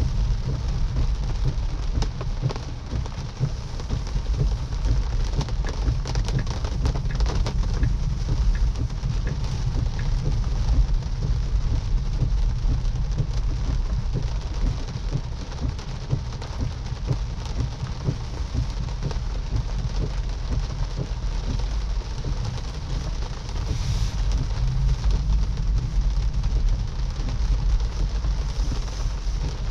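Moderate rain falling on a slowly moving car: a steady hiss with many small drop ticks over a constant low rumble.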